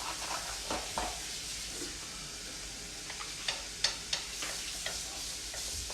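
Black bean burger patties sizzling steadily in a frying pan, with scattered sharp clicks and ticks, mostly in the second half.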